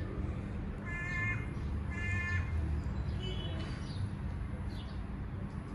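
A crow cawing three times, about a second apart, over a steady low background rumble.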